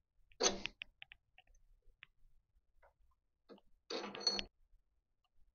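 Turned metal cotter piece slid by hand onto its mating part in the lathe chuck for a trial fit: two short bursts of metal scraping and clinking, about half a second in and again around four seconds in, with a few faint clicks between.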